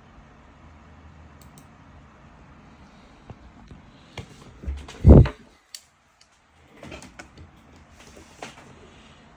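Handling noises: scattered light clicks and knocks, with one loud low thump about five seconds in, over a steady hiss.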